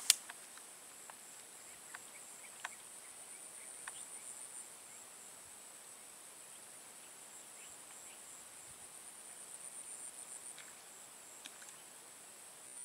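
Insects buzzing in a steady, high-pitched chorus that twice swells into a fast pulsing, with a few sharp clicks scattered through it, the loudest right at the start.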